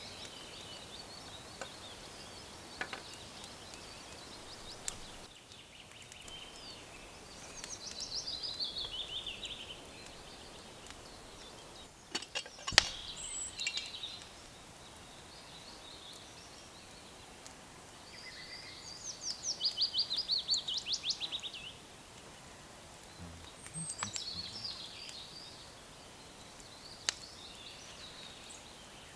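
Songbirds singing in woodland: several phrases of quick notes running downward in pitch, a few seconds apart, over a faint steady background hiss. There are a few sharp clicks about twelve to thirteen seconds in.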